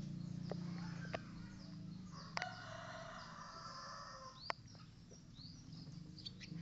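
Birds chirping, with short high calls over a low steady hum and three sharp clicks.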